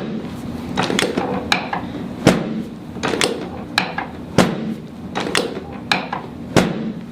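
About a dozen sharp clicks and knocks, spread irregularly, during a chiropractic adjustment session.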